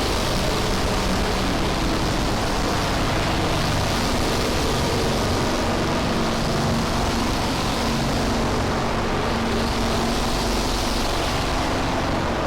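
A steady rushing noise with a low hum underneath, its hiss swelling and fading slowly every few seconds. It is a 'planet sound': a magnetosphere's radio frequencies pitched down into the audible range.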